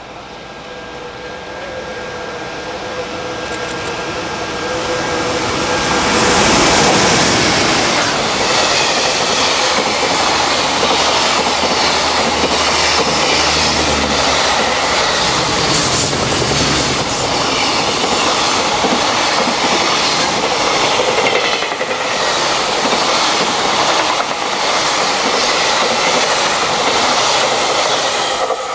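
Electric freight train led by a JR Freight EF210 locomotive passing at speed. It grows louder as it approaches with a steady whine, then a long string of container wagons rattles past with rhythmic wheel clacks for about twenty seconds. The sound falls away at the very end.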